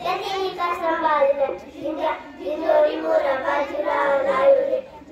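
Young girls singing a song, with long held notes and short breaks between phrases.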